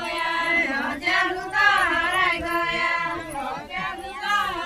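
A group of women singing a deuda folk song together, a chant-like melody in phrases of about a second with short breaks.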